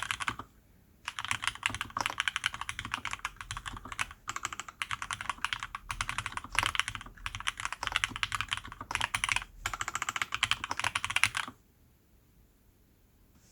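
Typing on a custom 65% mechanical keyboard with lubed Cherry MX Black Hyperglide linear switches and PBT keycaps, in an aluminium-top, polycarbonate-bottom case. Rapid key strokes come in bursts with brief pauses and stop suddenly near the end.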